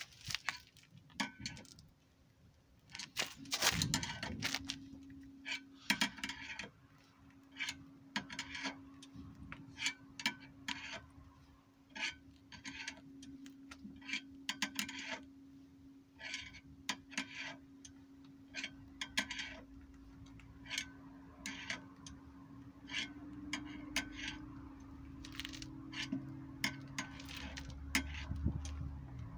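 Irregular sharp metallic clicks and taps from hand work with tools at a car jacked up on a scissor jack, with a steady low hum starting a few seconds in.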